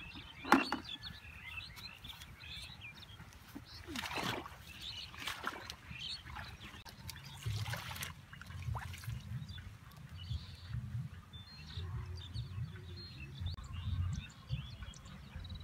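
Water and leaves being disturbed at the edge of a weedy pond: trickling and rustling as hands work among water hyacinth. Birds chirp now and then, and a single sharp knock comes about half a second in.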